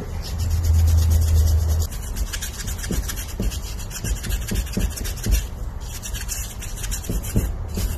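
Small soft wire brush scrubbing the aluminium deck of a Toyota 2TZ-FE cylinder head in rapid, scratchy strokes. The head is being cleaned so it can be checked for cracks. A low hum sounds for about the first second and a half, with a few dull knocks in the middle.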